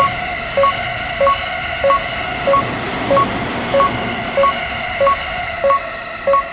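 Japanese level-crossing warning bell ringing steadily, an even electronic ding about every two-thirds of a second, over the continuous running noise of a passing train.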